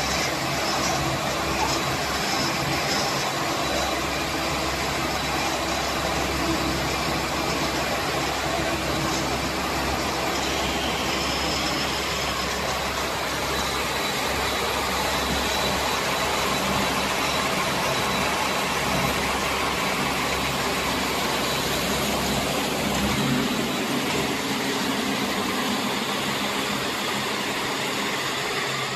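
Straw and hay baling machinery running steadily, a continuous engine-like mechanical sound at an even level.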